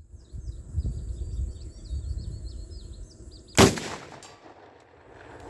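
A pump-action shotgun fires a single buckshot round about two-thirds of the way in: one sharp shot with a short tail. Birds chirp faintly in the first half.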